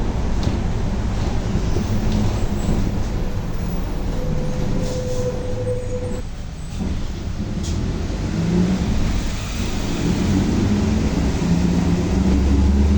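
Volkswagen 17-230 OD city bus driving, with a steady drivetrain rumble. A whine rises about four seconds in and cuts off abruptly near six seconds, followed by a short lull before the engine pulls harder toward the end. The differential is howling loudly.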